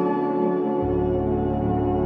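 Ambient background music of long held tones; a deep bass note comes in just under a second in.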